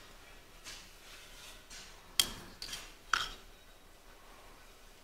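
A few light, sharp knocks and clinks against a hard surface, the two sharpest about two and three seconds in.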